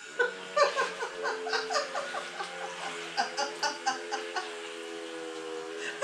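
People laughing and giggling in quick repeated bursts over a steady whine of several tones from racing RC boat motors, whose pitch shifts now and then.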